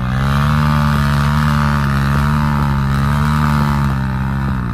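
ATV engine running at steady high revs, its pitch holding nearly constant, then easing off near the end.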